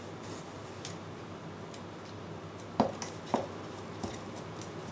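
Light clicks of small plastic spacers and nuts being handled and fitted onto a multicopter frame plate, with two sharper clicks a little under three seconds in and about half a second later, over a faint steady hum.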